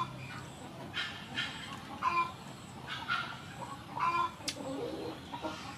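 Chickens clucking: a run of short clucks, about one or two a second.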